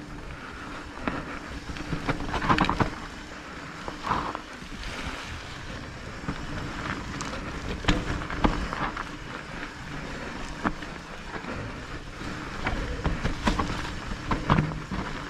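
Electric mountain bike riding a rough trail: wind on the microphone and tyre noise, with frequent short knocks and rattles as the bike goes over bumps.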